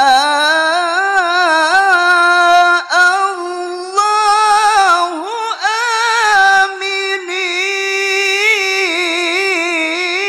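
A man reciting the Qur'an (tilawah) in a high, melodic, heavily ornamented voice into a handheld microphone. He holds long, wavering melismatic notes, with brief breaks for breath between phrases.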